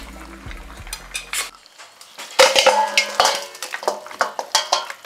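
Metal ladle scraping and clanking against a cooking pan as thick mutton bone curry is stirred, in quick irregular strokes that are loudest about two and a half seconds in. Background music fades out during the first second and a half.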